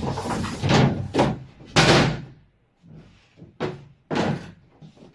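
Wooden bed boards being laid onto a bunk bed frame: a series of wooden knocks and thuds, the loudest about two seconds in, with two more near the end.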